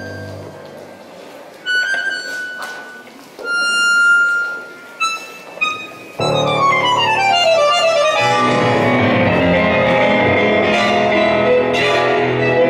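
Live tango ensemble with piano and violin. A quiet opening of a few separate held notes gives way, about six seconds in, to the whole group entering with a descending run and playing on together.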